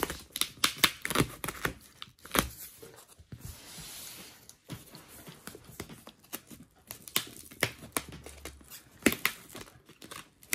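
Corrugated cardboard shipping box being cut open with a small knife along its open-here line: a run of sharp clicks and scrapes, with a longer tearing, slicing hiss about three seconds in.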